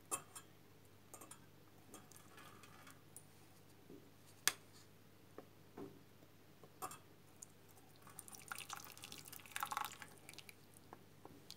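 Herbal tea strained from a cezve into a mug: scattered drips and light clicks, with a denser stretch of pouring about eight seconds in.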